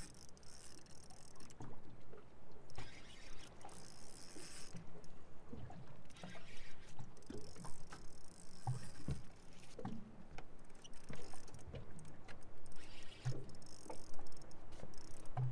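A spinning reel cranked in spells while a hooked kahawai is played on a light jigging rod, with scattered clicks and knocks.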